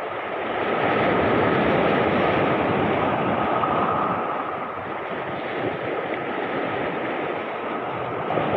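Sea surf washing and foaming over shoreline rocks in choppy water, swelling about a second in and easing off around the middle. A thin steady high tone runs underneath.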